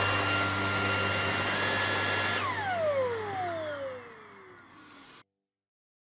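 Redroad V17 cordless stick vacuum running with a steady whine. It is switched off about two and a half seconds in, and the motor's pitch falls as it spins down and fades out.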